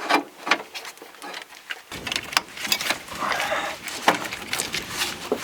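Clicks and light knocks of battery cable clamps and wires being handled and fitted onto the battery terminals.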